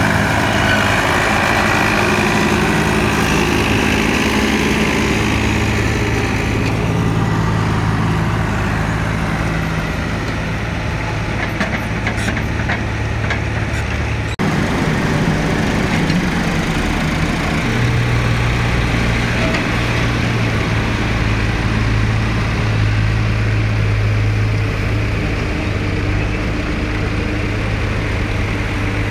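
Farm tractor diesel engines running steadily while hauling trolleys loaded with mud, with a small shift in engine pitch partway through.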